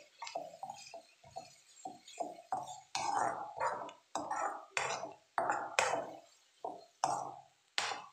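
Metal spoon scraping and clinking against an aluminium kadai while stirring a thick onion-tomato masala. The strokes are quick and repeated, about two a second.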